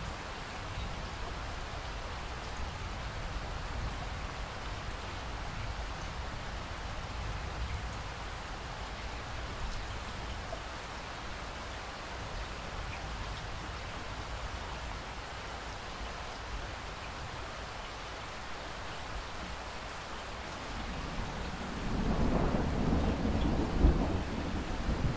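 Steady rain falling. Near the end a low rumble of thunder comes in, peaking in a sharper clap just before the end.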